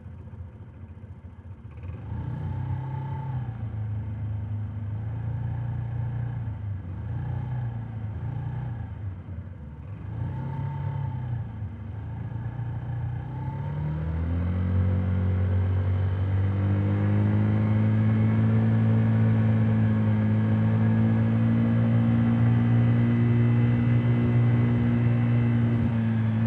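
Honda Today 50cc scooter's four-stroke single-cylinder engine, heard from inside the under-seat helmet compartment while riding. Its pitch rises and falls for about ten seconds after a quieter first two seconds, then climbs about halfway through and settles into a louder, steady drone.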